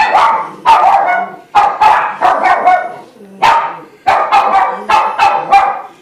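Dog barking repeatedly and loudly, short sharp barks in quick runs of two or three, about two barks a second.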